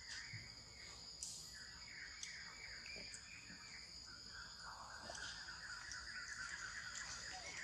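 Faint insect drone, a steady high whine that runs on, with a rapid run of short repeated chirps from about a second in until near the end.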